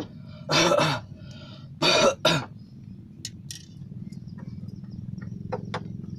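A person coughing: three harsh coughs in the first two and a half seconds, over a steady low hum.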